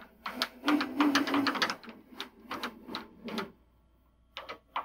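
A rapid, irregular run of sharp mechanical clicks as the ProtoTRAK RLX lathe's threading tool is hand-jogged up to the existing thread. The clicks are densest in the first two seconds, thin out, and a few more come near the end.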